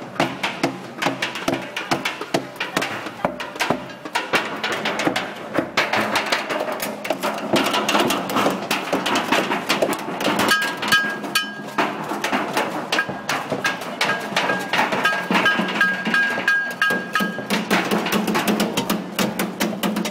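Street-parade percussion: dense, irregular drumming and banging over a steady low hum. About halfway through, a series of short high tones starts and runs for several seconds.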